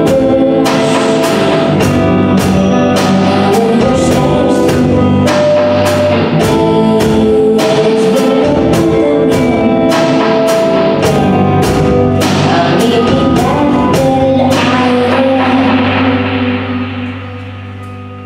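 Live rock band playing: drum kit with steady strikes on a hi-hat carrying a jingle ring, electric guitars holding chords, and a woman singing. About fifteen seconds in, the drumming stops and the last chords ring out and fade as the song ends.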